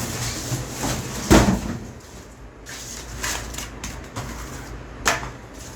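Packaging and printer parts being handled: scattered knocks and rustling, with a loud thump about a second in and a sharp knock near the end.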